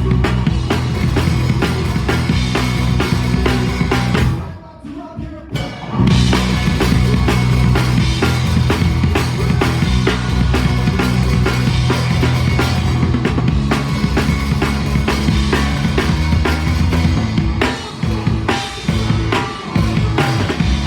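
Live rock band playing, with drum kit, bass and guitars. About four seconds in the band stops for under two seconds, then comes back in together.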